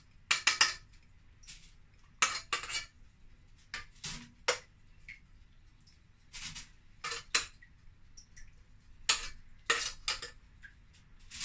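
Metal spoon clinking and scraping against a stainless steel cooking pot while scooping out pieces of boiled turkey gizzard, in irregular clusters of sharp clinks a second or two apart.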